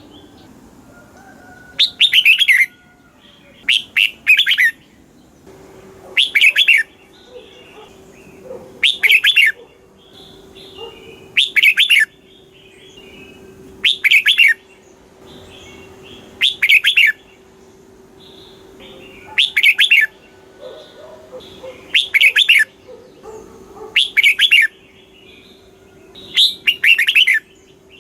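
Red-whiskered bulbul singing: short, loud, lilting phrases repeated about every two and a half seconds, with softer chirps in between.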